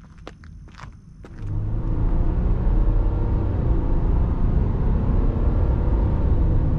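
A few sharp clicks, then about a second and a half in a loud, steady low vehicle engine sound sets in and holds.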